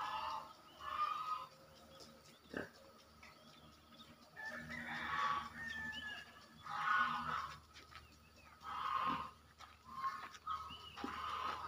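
Domestic chickens clucking and calling, one call about every one to two seconds.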